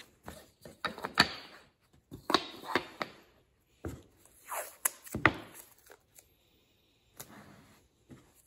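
Small pine frame pieces knocked and slid on a workbench as they are set in a row, with several sharp knocks, and painter's tape peeled off in short rasping pulls.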